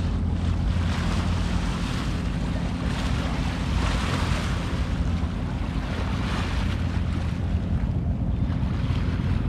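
Harbourside ambience: a steady low mechanical hum under a rushing wash of wind and water that swells a couple of times.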